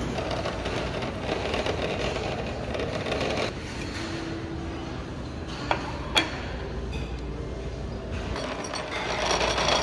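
Busy cafeteria background noise, a steady din of a large room with people in it, with two sharp clinks about half a second apart near the middle.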